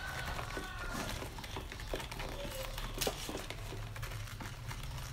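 Live fish shifting and flapping in a plastic basket as a hand picks through them: scattered small taps and rustles over a low steady hum.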